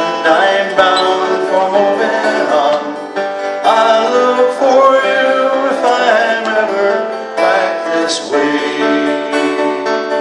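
Male voice singing a slow folk song over a strummed acoustic guitar. The voice stops about eight seconds in, and the guitar strums on alone.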